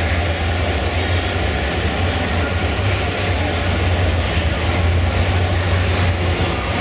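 Engines of show cars and a lifted pickup crawling slowly past, a steady low running hum with no revving, over the general murmur of a crowd in a large hall.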